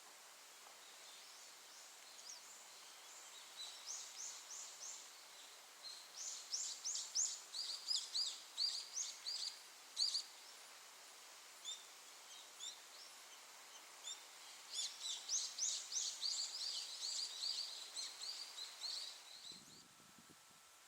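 A small songbird singing long, rapid runs of short, high, down-slurred notes, many per second, in two bouts, the first lasting about ten seconds and the second about five, over a faint steady hiss.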